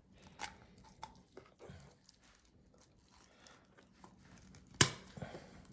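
Kitchen shears crunching through the rib bones along a raw chicken's backbone: a few faint snips, then one sharp, louder snap near the end.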